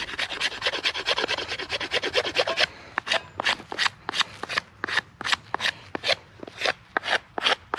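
Hand saw cutting through a wooden log in rasping back-and-forth strokes. The strokes come quickly for the first couple of seconds, then slow to about three a second.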